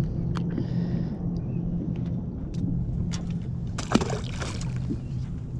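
A splash in the lake water beside the boat about four seconds in, over a steady low hum.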